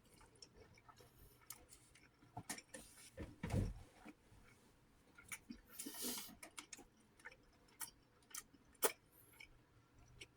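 A person chewing a mouthful close to the microphone: scattered small, quiet mouth clicks and smacks, with a low thud about three and a half seconds in and a brief hiss around six seconds.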